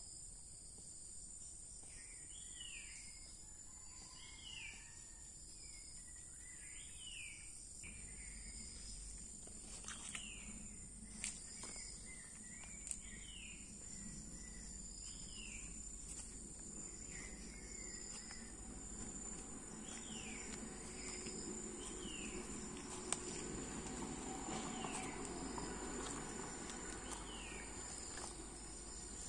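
Insect chorus at dusk: a steady, high-pitched cricket trill, with a short falling call repeated every one to two seconds by another small animal. There are a few soft clicks and rustles, and a low rumble of handling noise from about eight seconds in.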